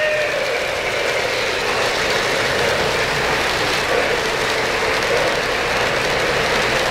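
Three-rail O-scale model freight train's boxcars rolling steadily past on metal track, the wheels running over the rails.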